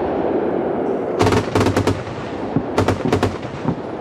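Gepard 1A2 anti-aircraft tank's twin 35 mm autocannons firing two short rapid bursts, one about a second in and another about three seconds in, over a continuous rumble of echo from the firing.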